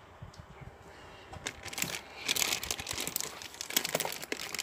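Crinkling and rustling of squishy toys' plastic packaging being handled, with light clicks; faint at first, getting busier from about two seconds in.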